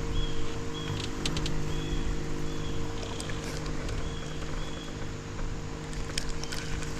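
Steady hum of a small electric motor, with a few light clicks and short high chirps that come in pairs.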